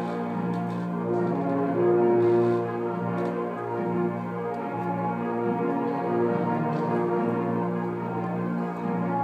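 Brass band playing slow, sustained chords. The held notes change every second or two, with a swell in loudness about two seconds in.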